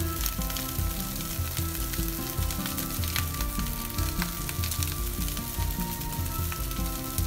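Fried rice sizzling and crackling steadily in a hot frying pan, with background music that has a bass line.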